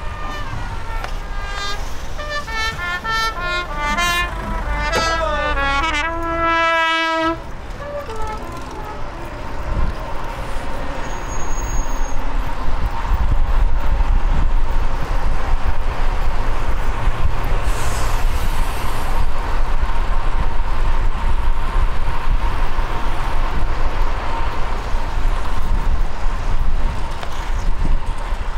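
A short tune of stepped, brass-like notes from a horn, ending on a held note about seven seconds in. From about ten seconds in, louder rushing wind and traffic noise from riding in city traffic.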